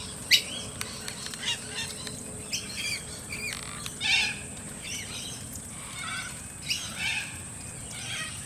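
Noisy miners calling in a flock: short, repeated chattering chirps, with a steady high-pitched whine behind them.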